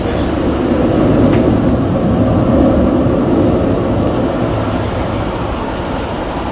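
Twin-engine jet airliner climbing out after takeoff: a loud, steady jet-engine rumble that swells about a second in and then slowly fades as it climbs away.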